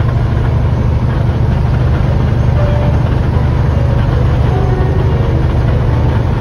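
Steady low drone of a truck's engine and road noise heard from inside the cab while driving at highway speed.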